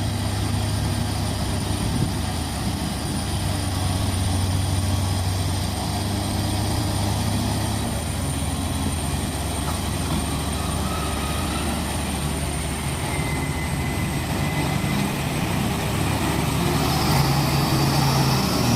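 Diesel engine of a loaded 6x4 truck running hard under load in a steady low drone, getting louder near the end as it strains through deep mud.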